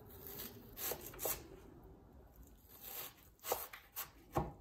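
Global chef's knife dicing an onion on a bamboo cutting board: about six crisp chops of the blade through the onion onto the board, two about a second in, then a pause, then four more near the end, the loudest last.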